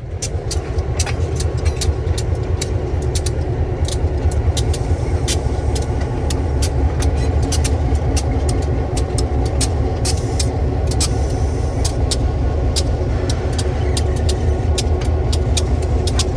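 Diesel freight locomotive running with a steady low rumble, with many sharp clicks over it.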